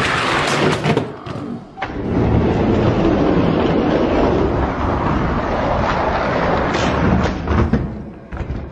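Hot Wheels die-cast monster trucks rolling fast down an orange plastic track, a steady rumble with a few sharp clacks near the end as they reach the finish and pile into the catch bag.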